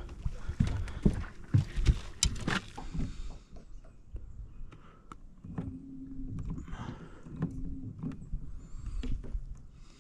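A run of clicks and knocks as a just-caught crappie is unhooked and rod and tackle are handled in an aluminium boat, then a low motor hum comes on briefly twice, about a second and a half apart.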